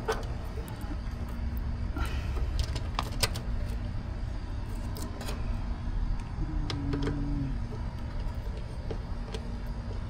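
Scattered small metallic clicks and clinks of hand tools and wire being handled during electrical work, over a steady low rumble, with a brief low tone about six and a half seconds in.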